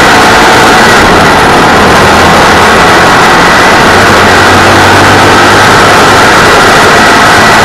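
602 cc race-car engine running hard under way on a dirt track, recorded on board from the cockpit. It is loud and steady throughout, with no shifts or breaks.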